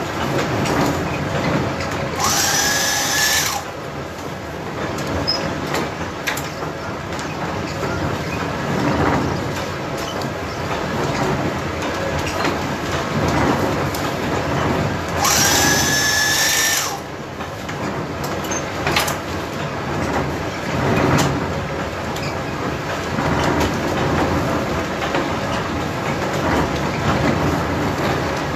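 Portable electric sack-sewing machine running in two short bursts of about a second and a half each, stitching shut a filled flour sack: a high motor whine that rises to speed and holds. The first burst comes a couple of seconds in, the second about halfway through. Under it the windmill's milling machinery runs with a steady clatter.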